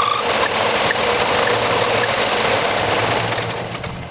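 Metal lathe running, its cutting tool turning a metal tube to make a metal bushing. A high steady whine stops just after the start, and the noise eases off near the end.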